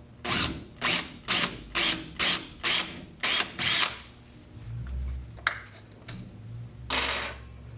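Cordless drill boring a pilot hole in drywall for a wall anchor, running in about eight short bursts, roughly two a second, for the first few seconds. A sharp click and one more short burst follow near the end.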